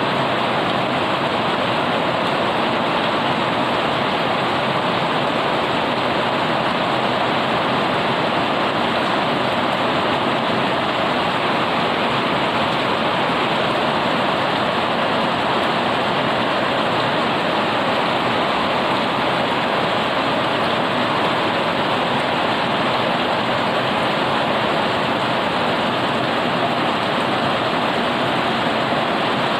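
Heavy rain pouring down steadily onto wet concrete paving and large garden leaves.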